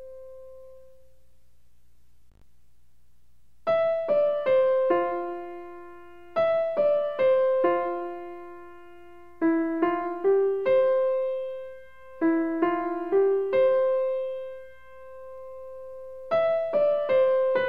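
Background piano music. A held note fades out in the first second, then from about four seconds in a short phrase of quick falling notes repeats about every three seconds.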